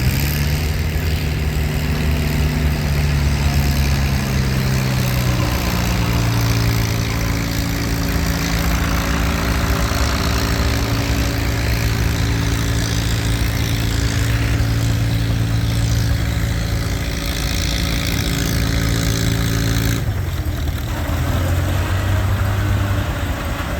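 Steam traction engine driving a belt sawmill: a steady droning tone with overtones over a low rumble. The tone drops a little in pitch about five seconds in and stops abruptly about twenty seconds in.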